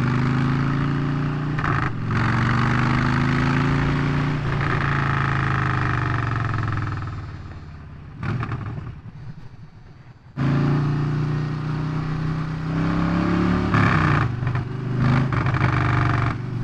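Motorcycle engine running on the move, its pitch shifting with the throttle. Past the middle it drops away quietly for a few seconds, then picks up abruptly about ten seconds in and runs on.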